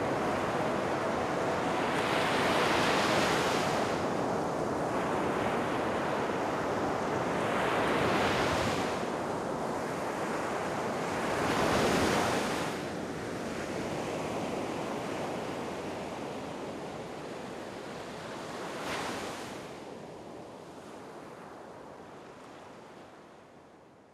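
Sea surf breaking on a shore, swelling loudly four times as waves crash, then fading away near the end.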